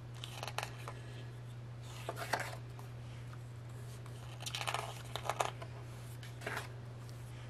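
Pages of a photo book being turned and handled: a handful of short paper rustles spread out over several seconds, over a steady low hum.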